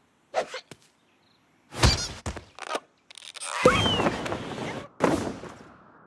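Cartoon slapstick sound effects: a few short knocks, a loud thud about two seconds in, then a longer crashing, rumbling stretch with a heavy thud in it and another hit near the end.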